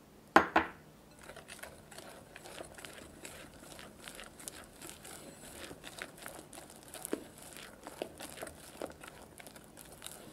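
Wire whisk working cake flour into whisked egg yolks and sugar in a glass bowl: a quick wet, crackly stirring with the wires ticking against the glass. It opens with two sharp knocks about half a second in.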